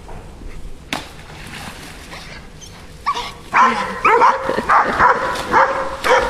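German longhaired pointer puppies barking and yelping in a rapid run of high, pitched barks, starting about three seconds in, several a second.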